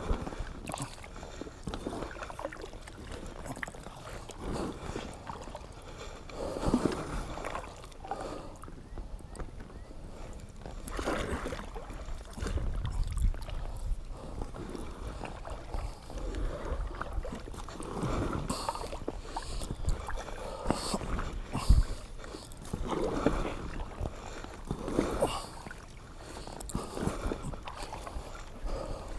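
Kayak paddle strokes in the water beside an inflatable kayak, a swish or splash every couple of seconds, with one sharp knock about two-thirds of the way through.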